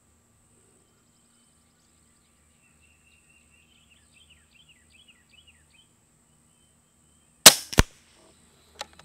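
A single shot from an Air Arms Galahad HR .22 regulated PCP air rifle about seven and a half seconds in: a sharp crack, followed a moment later by a second, shorter crack.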